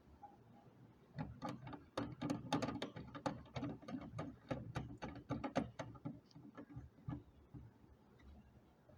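Rapid, irregular clicking and rattling as the plastic window bird feeder is handled, dense for about five seconds and then thinning out.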